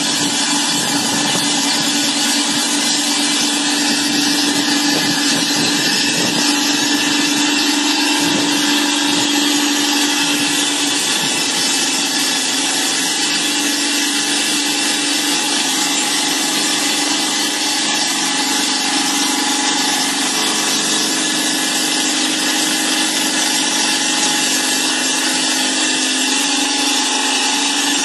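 Stone block cutting machine's large circular saw blade wet-cutting through a rough stone block: a steady, loud grinding hiss over a motor hum that dips slightly in pitch about eleven seconds in.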